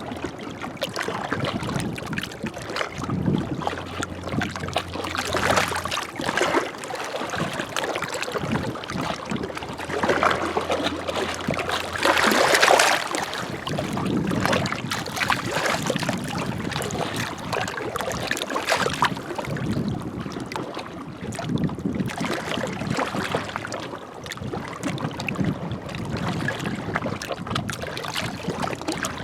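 Small waves lapping and splashing against the shore in uneven surges, with one larger splash about twelve seconds in.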